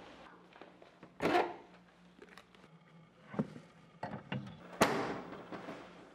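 Footsteps with a few knocks and thuds; the loudest thud is about five seconds in and rings out briefly.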